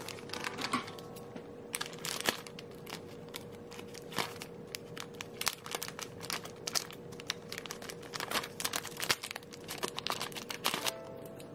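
Crinkling and crackling of plastic wrapping being handled and cut open with scissors, a string of irregular sharp crackles and snips.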